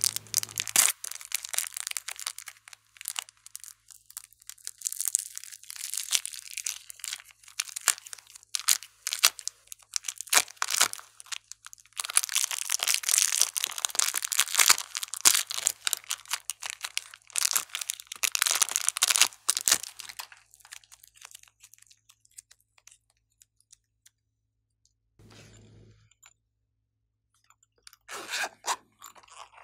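Crinkling plastic film and soft modelling clay tearing as a block of blue clay is peeled out of its plastic wrapper, a dense crackly sound that thins out after about twenty seconds. A short burst of handling noise near the end.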